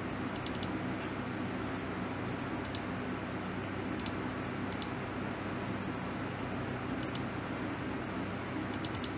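Steady low hum of room tone, with a few faint, sharp clicks scattered through it, a computer mouse being clicked.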